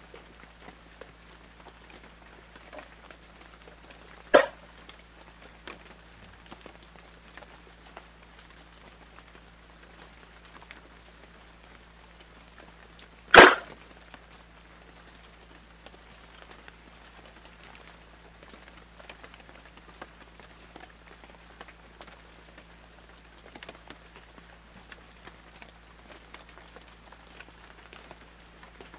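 A hard-shell suitcase being handled: two sharp knocks about nine seconds apart, the second the louder, over a low steady hum and faint crackle.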